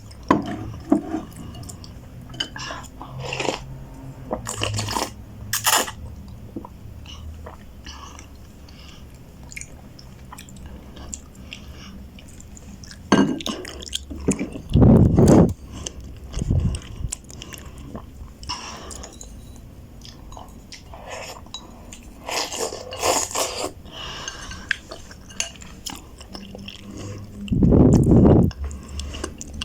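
A person chewing and biting into roast beef ramen noodles close to the microphone, with many small wet clicks of the mouth. Two louder, heavier bursts come about halfway through and near the end.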